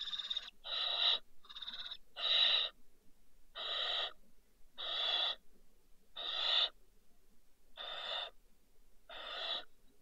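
Barn owl giving a series of about nine rasping, hissing calls, each roughly half a second long, spaced a second or so apart.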